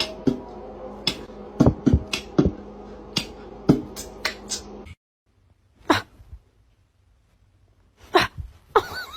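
A pet making short, sharp sounds, about a dozen in quick succession, then a break and a few more spaced out.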